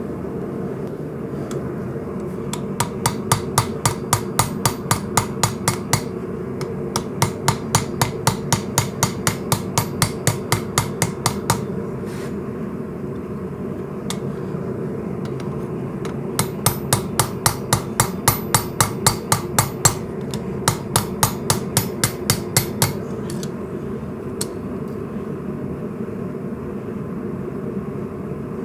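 Hand hammer striking hot coil-spring steel on an anvil, forging the bolster of an integral knife: three runs of quick, ringing blows, about three a second, with a few single taps in between, over a steady low hum.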